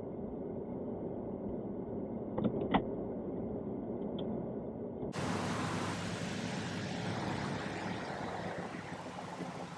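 Low car rumble heard inside the cabin, with a few short clicks about two and a half seconds in. About halfway through it switches abruptly to a steady outdoor hiss.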